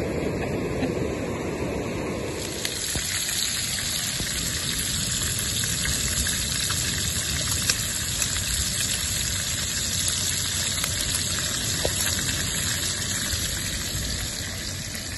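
Surf washing on the shore gives way, about two seconds in, to a steady sizzle. Small mojarra fish and shrimp are frying in butter in a pan on a portable stove, with occasional faint pops.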